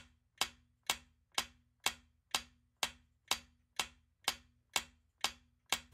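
Countdown timer sound effect: an even clock-like tick about twice a second, each tick short and sharp.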